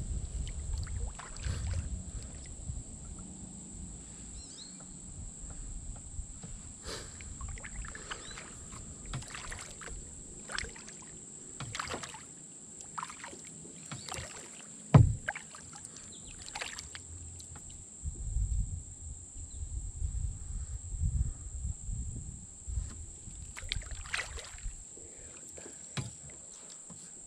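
Kayak paddling: the paddle dips and splashes with water dripping, and now and then knocks against the plastic hull, with one loud hollow knock about fifteen seconds in. A faint steady high-pitched whine runs underneath.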